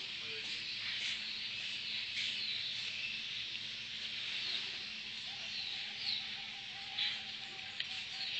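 Zebra dove (merbok) cooing, with one long trembling note from about five seconds in, over a steady high insect buzz and short chirps of other birds.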